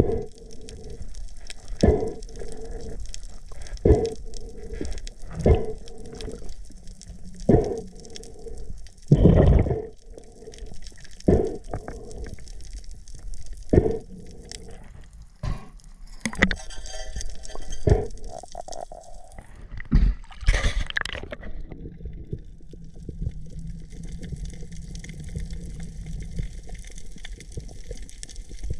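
Water sloshing and gurgling, with a muffled knock about every two seconds; about two-thirds of the way through the knocks stop and a steady hiss remains.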